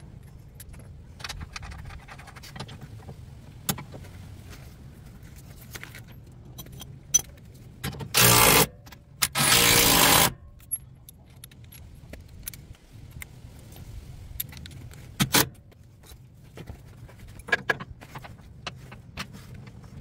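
Metal clinking and clicking of bolts, nuts, washers and tools being handled, with two loud bursts of a Milwaukee M18 cordless impact driver hammering a socket onto a bolt about eight and nine seconds in. The second burst lasts about a second. The impact driver is snugging down the bolts that hold a steel skid plate to the frame.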